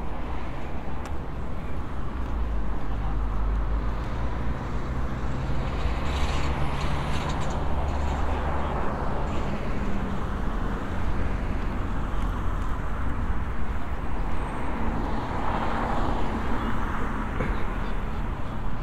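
City road traffic: a steady rumble of passing vehicles, swelling twice as vehicles go by, once a third of the way in and again near the end.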